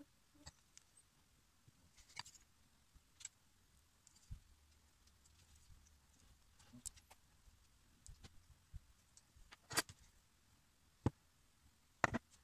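Scattered small clicks and taps from a knife trimming and hands handling a pink wax and shellac baseplate on a plaster jaw model, with a few sharper clicks near the end.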